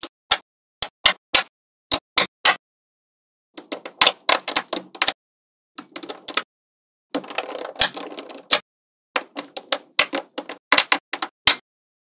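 Small magnetic balls clicking as they snap onto one another: single sharp clicks at first, then longer runs of rattling clicks as rows and clusters of balls are pressed into place.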